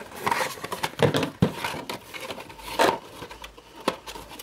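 Plastic packaging crinkling and rustling in irregular bursts as it is handled, with a few sharp light knocks.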